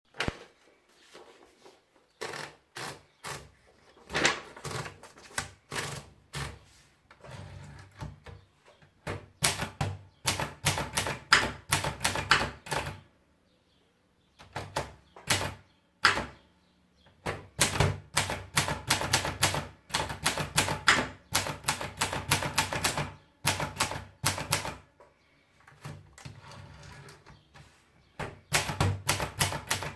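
Neckermann Brilliant Junior typewriter being typed on: runs of sharp keystroke clacks with short pauses between them, including a near-silent gap about halfway through.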